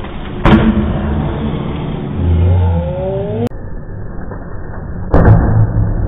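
Slowed-down, deep-sounding audio of a crocodile lunging up out of the water at food, with a sharp hit about half a second in and another about five seconds in, and low rumbling between them. The sound grows slower and deeper a little past halfway.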